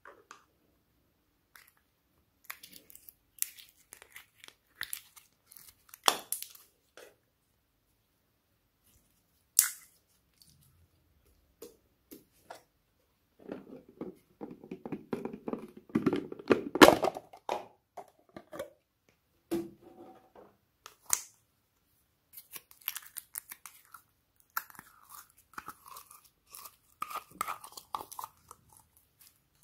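Plastic slime containers being handled and opened: scattered clicks and taps, then a dense burst of crackling and rustling about halfway through as an owl-shaped plastic container is handled. Near the end, fine sticky crackling as pink slime is pulled from its tub.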